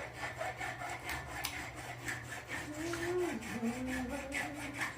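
Rhythmic rasping scrapes, several a second, over a steady low hum.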